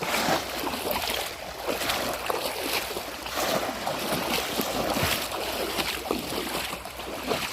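Shallow water splashing and sloshing without a break, with irregular splashes, as people wade and work bamboo polo fish traps.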